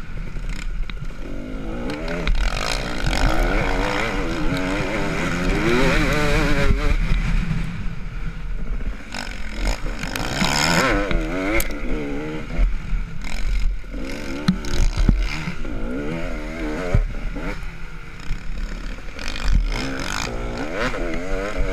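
Motocross bike engine revving up and down as it is ridden through corners, pitch rising and falling, with wind rumble on the onboard microphone and occasional knocks and clatter from the bike over the rough track.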